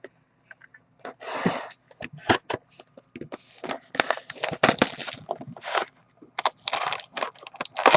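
Plastic wrapping crinkling and tearing as a sealed box of trading cards is opened: an irregular run of crackles and short rips that grows busier about three seconds in.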